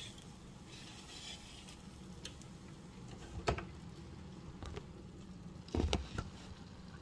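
Handling noise from a phone as it is picked up and moved: scattered light clicks and a sharper knock about halfway through, then a cluster of dull thumps near the end. A steady low hum runs underneath.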